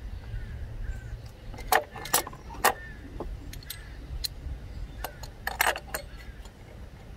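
Sharp metallic clinks of a spark plug socket and extension knocking together and against the engine. A few single clinks come about two seconds in, then a quick cluster about five seconds in, over a steady low rumble.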